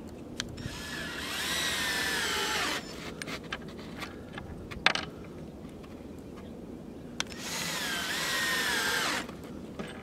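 Cordless drill driving gold decking screws into lumber in two runs of about two seconds each, its motor whine bending in pitch as each screw bites and seats. A sharp knock comes about halfway between the two runs.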